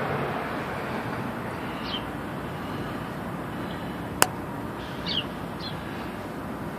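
Steady outdoor background noise with short falling bird chirps every second or so, and one sharp click about four seconds in.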